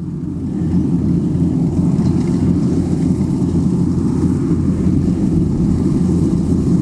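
Kubota DC95 combine harvester's diesel engine and cutting and threshing machinery running steadily under load as it harvests rice, a deep drone that grows a little louder in the first second as the machine comes closer.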